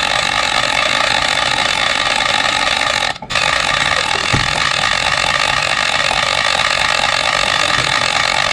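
Loud, steady machine noise, hiss-like with a few fixed tones running through it, broken by a short dropout about three seconds in.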